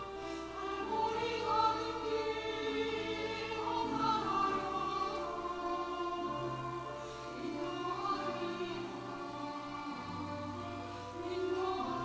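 Church choir singing a hymn in long held notes, accompanied by piano.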